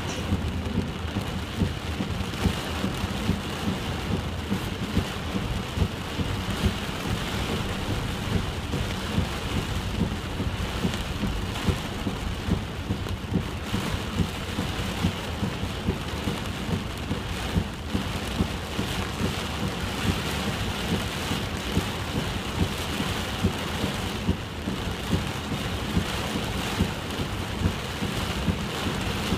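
Heavy typhoon rain pouring steadily, with frequent sharp, louder drops striking close by.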